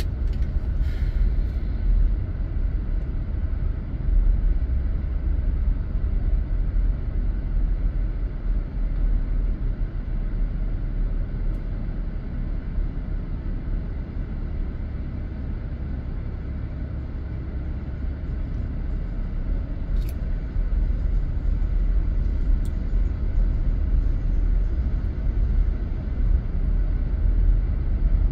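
Steady low rumble of a car's engine and tyres, heard from inside the cabin while driving slowly on an unpaved street, with a single brief click near the end.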